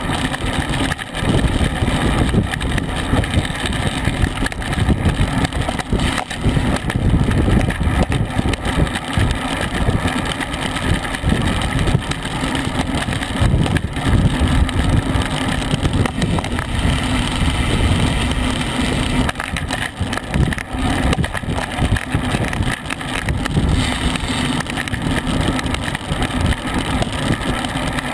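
Wind buffeting the microphone of a bicycle-mounted camera at racing speed, about 21 to 26 mph: a loud, steady rush with constant gusting in the low end.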